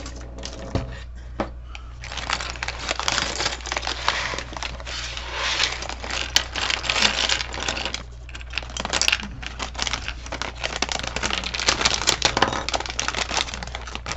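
Plastic packaging crinkling and rustling as it is handled and opened, with small sharp clicks in between, in two long stretches broken by a brief pause about eight seconds in.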